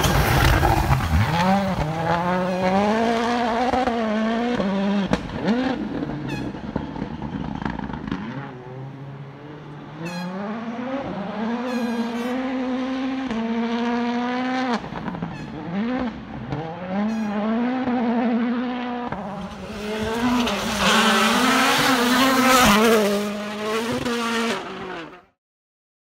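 Rally car engine on a gravel forest stage, revving hard and climbing and dropping in pitch again and again through gear changes, with a few sharp cracks. It fades briefly about a third of the way in, builds again, and cuts off suddenly near the end.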